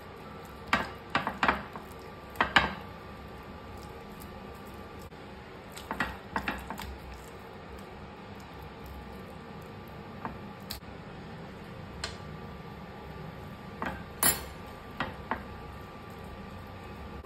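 Dishes and kitchen utensils clinking and clattering in short, irregular clusters, the loudest about fourteen seconds in, over a faint steady hum.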